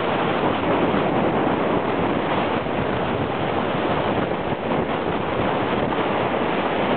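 Steady wind rush on the microphone of a camera carried on a moving bicycle, mixed with road noise.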